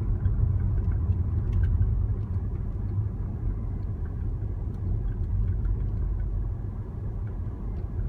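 Steady low rumble of a moving vehicle, with faint, irregular short creaking chirps heard over it now and then.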